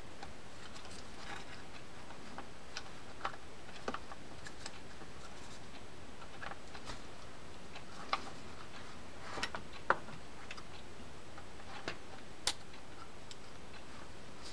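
Sparse, irregular light clicks and taps of small metal parts on a Shimano Trinidad 12A reel's side plate as the shaft, gear and springs are fitted by hand. About a dozen faint ticks, the sharpest near the middle and about two seconds later.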